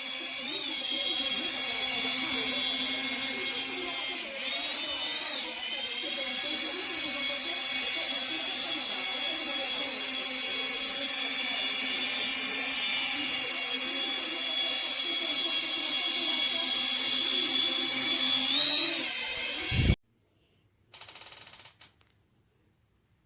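Small toy quadcopter drone's motors and propellers whining steadily at a high pitch, the pitch wavering briefly a few times. The whine stops abruptly near the end, followed by a short faint rustle.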